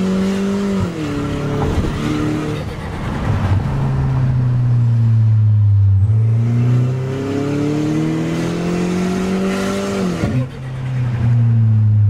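Citroën DS5's turbocharged engine accelerating hard through the gears, heard from inside the cabin: the engine note climbs, falls sharply at an upshift about a second in, holds lower, then climbs again to another upshift near the end. The wastegate rattle is gone after the repair, and boost holds even through the gear pulls.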